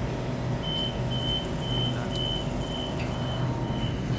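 A Sydney Trains Waratah double-deck electric train standing at the platform, its equipment giving a steady low hum, with a short high electronic beep repeating about twice a second from about half a second in.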